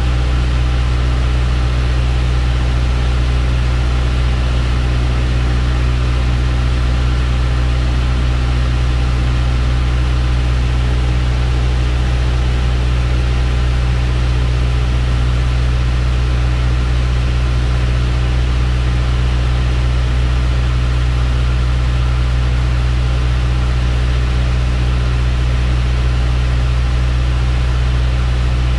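Light aircraft's engine and propeller droning steadily at a constant power setting, heard inside the cockpit.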